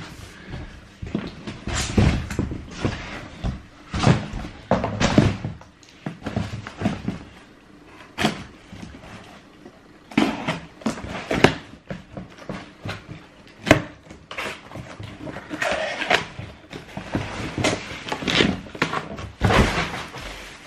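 Trainers and cardboard shoe boxes being handled: irregular knocks and thumps mixed with short rustling noises.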